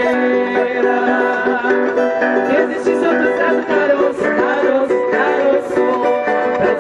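Music played on plucked string instruments, going on steadily without a break.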